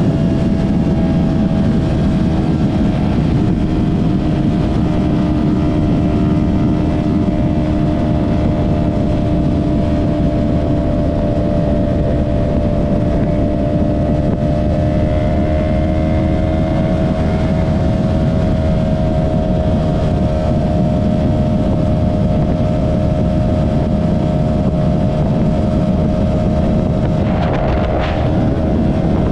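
2023 Yamaha R3's parallel-twin engine through an M4 Street Slayer exhaust, running at a nearly steady pitch while cruising, with heavy wind rush on the microphone. A brief sharp noise cuts in near the end.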